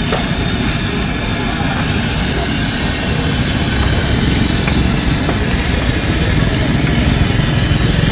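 Busy street noise of motorcycle engines running, with a low rumble that grows toward the end, over the steady hiss of fritters frying in a wok of hot oil and a few light clicks of metal tongs.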